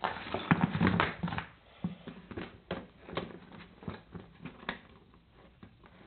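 Steel Duke foothold trap being handled on a workbench: its jaws, springs and pan clink and knock against each other in a quick, irregular run of metallic clicks that thins out near the end.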